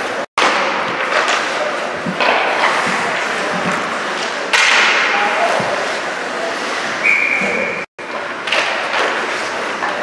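Ice hockey play in a rink: skates scraping the ice, with sticks, puck and bodies knocking and thudding against the boards, over a dense wash of rink noise. The sound drops out completely for a moment twice.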